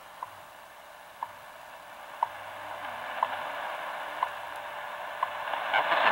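NIST shortwave time station WWV received on a Tecsun PL-660 radio tuned to 2.5 MHz: short seconds ticks, one each second, over shortwave static. The static grows louder toward the end.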